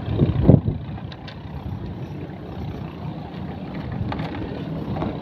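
A few low thumps, then faint clicks, from a cast net and its chain weights being handled as a fish is picked out of the mesh, over a steady low rumble.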